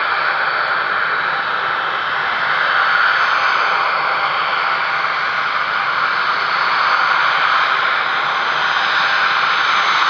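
Boeing 767-300's twin General Electric CF6-80C2 turbofans running at taxi power as the airliner rolls slowly along the taxiway: a steady rushing jet noise with a faint whine, swelling slightly about three seconds in.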